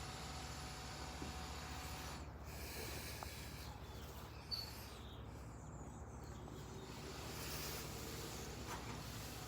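120 V AC fan running inside a PC case: a steady airy hiss over a low hum, with one brief click about four and a half seconds in.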